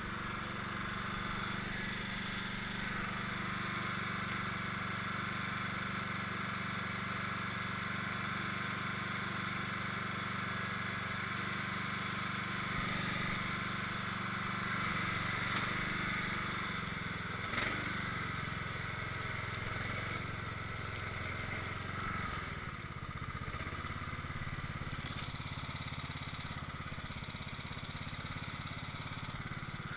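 Cub Cadet XT1 lawn tractor engine running steadily under load while its front blade pushes heavy snow, the engine note dropping slightly a little past the middle, with one sharp knock partway through.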